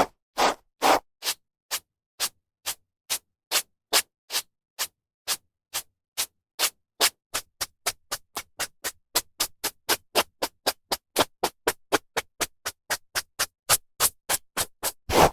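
A brush drawn through hair in quick, short strokes, about two to three a second, each a brief swish with silence between. Near the end the strokes become longer and louder.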